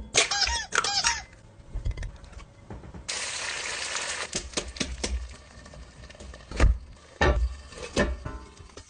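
A ceramic bowl set down on a wooden board clatters and rings several times in the first second. From about three seconds in, beaten egg poured into a hot oiled skillet sizzles for a few seconds. Near the end a ceramic plate knocks a few times as it is laid over the pan.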